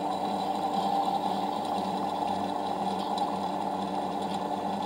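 Small battery motor of a toy washing machine running, a steady, even whirr as it turns the drum.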